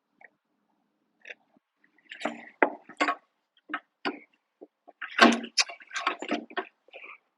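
Irregular knocks and clatter of wood and tools being handled during gate framing, busiest about two seconds in and again around five to six seconds in.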